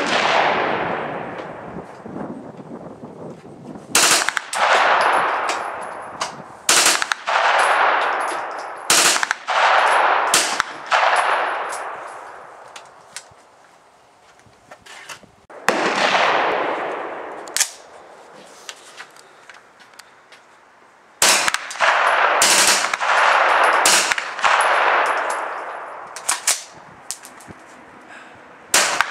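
A Colt 9mm AR-15 carbine being fired, about a dozen single shots spaced a second or more apart, each followed by a long echoing tail. There is a pause of a few seconds near the middle.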